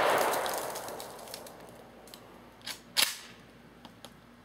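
The echo of a 12-gauge Saiga 12 shotgun blast, fired with birdshot, rolling away and fading. Two sharp clacks follow about three seconds in.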